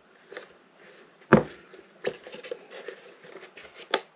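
3D-printed plastic box parts being handled and pressed together: light scraping and small clicks, with a sharp knock about a second in and another near the end as the insert is seated and the hinged side wings are shut.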